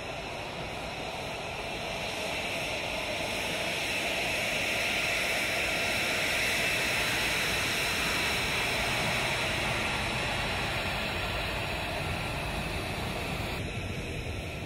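F-35 fighter's single Pratt & Whitney F135 turbofan running at taxi power as the jet rolls past, a steady jet rush with a high hiss that swells to its loudest about halfway through and then eases off as it moves away.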